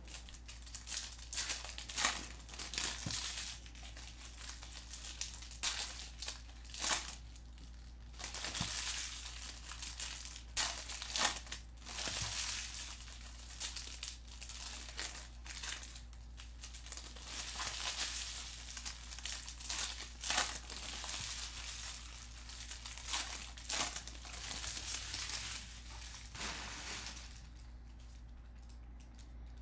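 Bowman baseball card pack wrappers being ripped open and crinkled by hand in irregular crackling bursts, with cards handled in between; quieter near the end.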